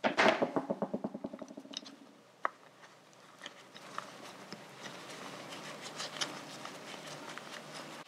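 Small parts of a motorcycle brake master cylinder being handled on a towel-covered bench. A quick rattle of clicks dies away over about two seconds, then comes a single sharp click, then light scattered clicks and rustling.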